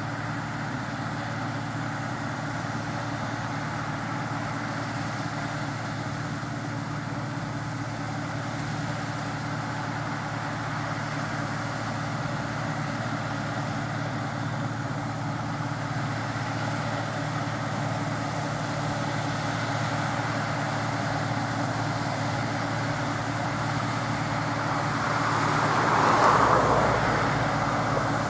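Claas Dominator 106 combine harvester running while harvesting wheat: a steady engine drone under a rushing mechanical noise, swelling louder for a moment near the end.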